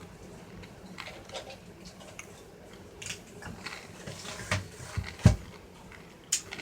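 Irregular clicks and knocks from a car radio head unit being handled and hooked up for a bench test, with one loud thump about five seconds in and a sharp click near the end.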